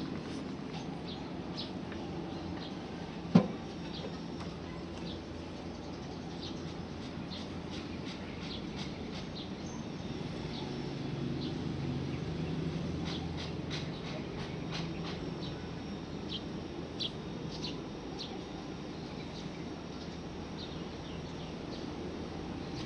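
National CU-915KH mini-split outdoor condenser unit running with a steady low hum, swelling slightly about halfway through. Short high chirps sound over it throughout, and a single sharp knock comes about 3 seconds in.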